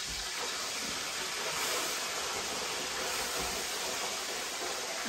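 Steady sizzling hiss of chicken deep-frying in oil in the background.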